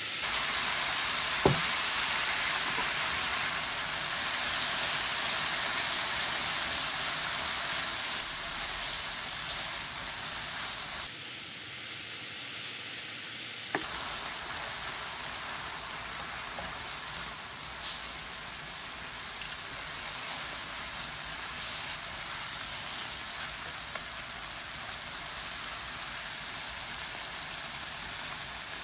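Sliced onions frying and sizzling in a nonstick pan with two tablespoons of water just added, the sizzle strongest at first and easing off. A single sharp knock about a second and a half in, with a few light taps later.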